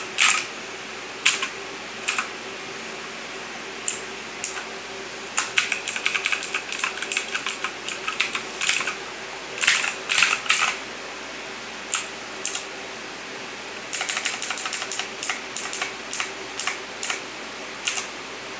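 Typing on a Motospeed Inflictor CK104 mechanical keyboard: single keystrokes with pauses between them, and runs of quick typing, with a faint steady hum behind.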